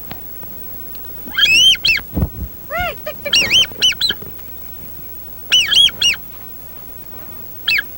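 Duck calls: short, high, rising-and-falling squeals that come in quick groups of two to four, with pauses between. There is a low thump about two seconds in.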